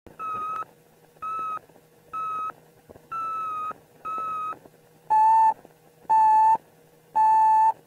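A series of steady electronic beeps, about one a second: five higher-pitched beeps, then three louder, lower-pitched ones, over a faint steady hum.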